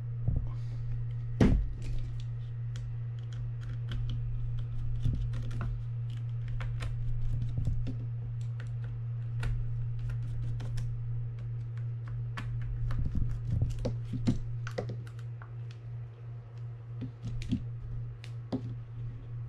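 Small screws being backed out of a Daiwa Sealine SL250H reel's side plate with a mini screwdriver and set down: many light metal clicks and ticks, with one louder knock about a second and a half in. A steady low hum runs underneath.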